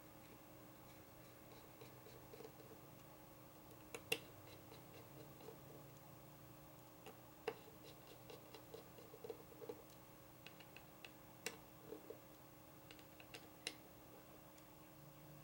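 Faint, scattered light clicks and scratches of small folding-knife parts being handled and fitted by hand, the sharpest click about four seconds in. A faint steady hum runs underneath.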